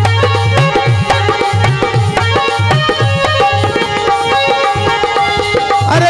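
Instrumental passage of devotional bhajan music: a hand drum plays a quick rhythm of deep, pitch-bending bass strokes and sharp strokes under held melodic tones. Right at the end the held tones move to a new pitch.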